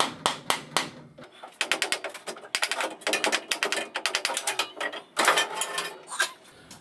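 A small hammer tapping on a Boxford lathe's apron, sharp metal strikes about three a second for the first second. Then comes rapid metallic clicking and rattling as the apron is worked loose and lifted off the lathe.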